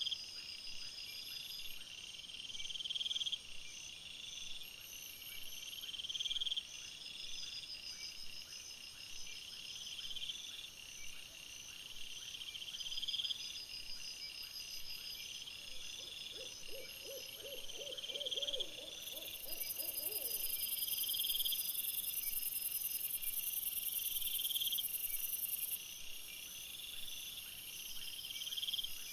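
Night insects chirping in a high, repeating pattern. About sixteen seconds in, a lower, rapidly pulsing call sounds for a few seconds, and a high hiss joins for several seconds after it.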